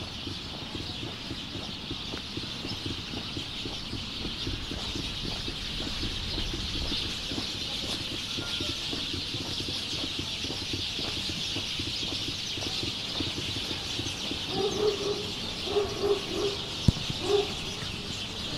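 A steady high hiss throughout, with a bird's short calls repeated several times in the last few seconds and a single sharp click among them.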